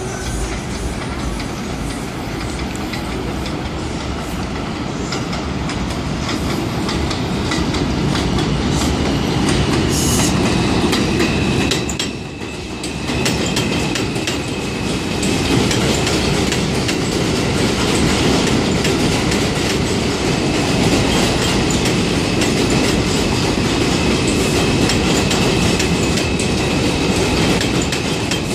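R142 subway train running past on an elevated steel line: loud, continuous wheel clatter over the rail joints, with a faint, steady high wheel squeal from partway through. There is a brief lull about twelve seconds in.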